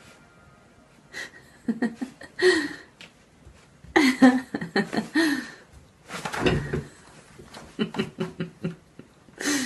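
A person laughing off camera in several short bursts with quiet gaps between them.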